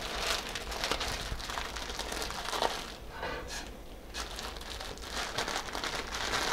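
Plastic wrapper of an instant ramen packet crinkling as it is handled, a continuous run of irregular crackles and rustles.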